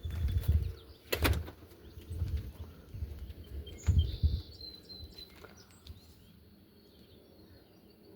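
Irregular low thumps of footsteps with the phone being handled, a sharp click about a second in, and a few faint bird chirps around the middle.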